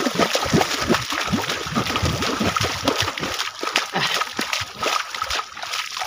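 Feet splashing through shallow river water at a run, a quick irregular series of splashes that thins out after about three seconds.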